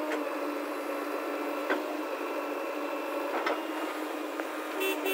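JCB 3DX backhoe loader's diesel engine and hydraulics running with a steady hum as the backhoe arm dumps soil and swings back. A few faint sharp knocks sound about every second and a half.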